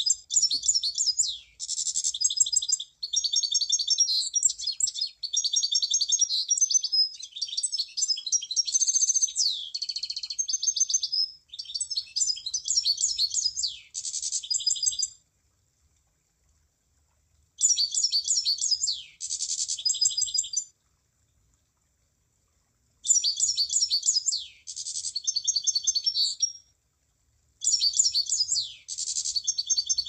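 Emprit (munia) song: phrases of rapid, high-pitched chattering notes mixed with quick downward-sweeping whistles, each phrase lasting a few seconds, with short pauses between them.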